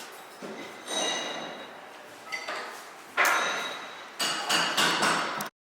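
A string of sharp clinking hits, each ringing out with a bright tone, the loudest about three seconds in and several in quick succession near the end; the sound then cuts off abruptly.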